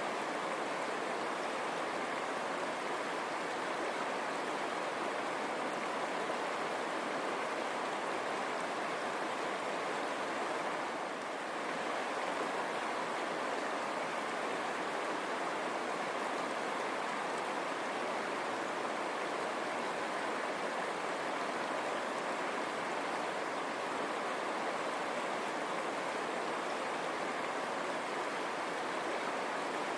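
River water running steadily over stones: a continuous rushing and babbling.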